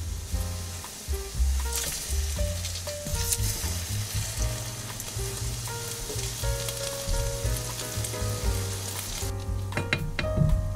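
Chicken-and-cabbage patties sizzling in hot oil in a nonstick frying pan. The sizzle falls away about nine seconds in, and a few sharp taps and scrapes of silicone spatulas follow as the patties are turned. Soft background music with a bass line plays throughout.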